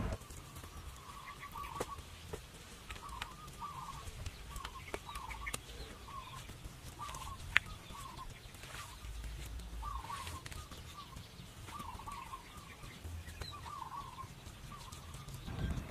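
Chickens clucking in short repeated calls every second or so, with scattered faint clicks and one sharp click about seven and a half seconds in.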